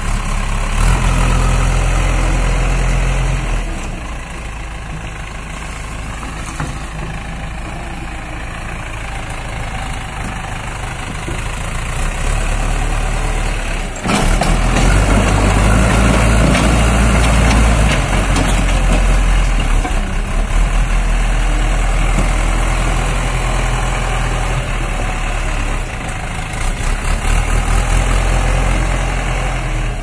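JCB 3DX backhoe loader's diesel engine running while the machine moves and works its loader bucket, its revs and loudness rising and falling. It is quieter for a stretch and louder again from about halfway, with surging revs near the end.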